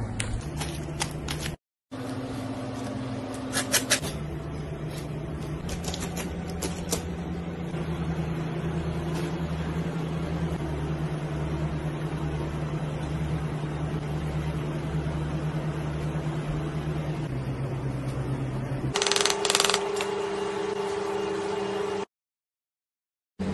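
A steady low mechanical hum with scattered sharp clicks and taps of a knife and hands working on a plastic cutting board. The loudest cluster of clicks comes a little before the end, and the sound drops out to silence twice, briefly.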